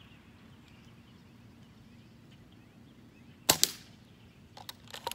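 Airsoft sniper rifle firing a single shot, a sharp crack about three and a half seconds in, followed near the end by a few quieter quick clicks.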